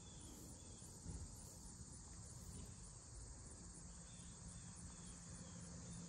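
Faint outdoor ambience: a steady, high insect chorus over a low rumble, with a faint low hum coming in a little past halfway.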